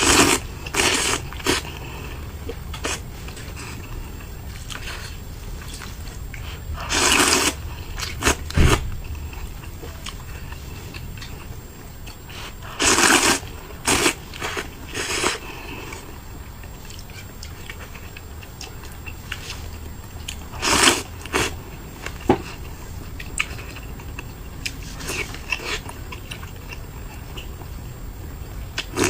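Close-miked eating of spicy noodles and boiled eggs: chewing and mouth noises, with short loud noisy bursts several times.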